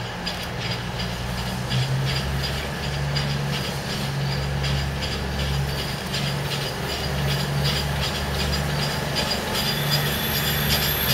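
LMS Black 5 4-6-0 steam locomotives drawing a train slowly into a station: a steady low rumble with rapid light clicking and clanking. A high squeal joins near the end.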